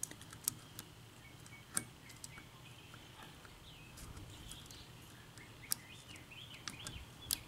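Faint, scattered metallic clicks and ticks of a hook pick probing and lifting the pins of an Asec 6-pin cylinder lock under light tension during single-pin picking, with a few sharper clicks spaced seconds apart.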